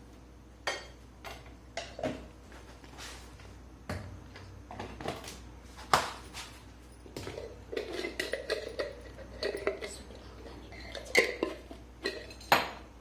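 Metal pots and utensils clinking and clattering, with irregular sharp knocks, the loudest about six seconds in and twice near the end.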